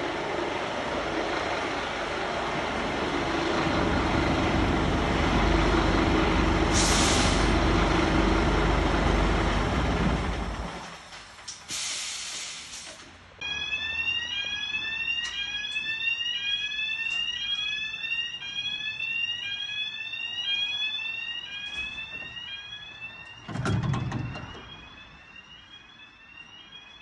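Scania P320 fire truck's diesel engine running, louder for a few seconds and then stopping, with short air-brake hisses twice. Then the fire station's bay-door warning tones sound as a steady repeating rising electronic chirp while the doors close, with a single thud as they shut near the end.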